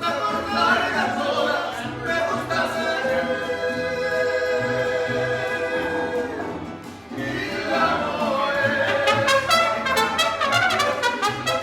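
Background music: orchestral piece with singing and brass, held notes swelling, a brief dip about seven seconds in, then building again.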